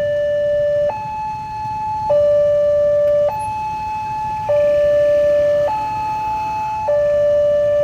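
Railway level-crossing warning siren sounding, an electronic alarm alternating steadily between a lower and a higher note, each held a little over a second: the crossing's signal that a train is approaching.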